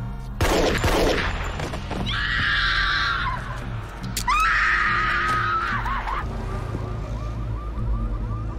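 Several pistol shots, the first two close together near the start and another about four seconds in, each followed by loud high wailing tones; a rapid repeating chirp runs near the end.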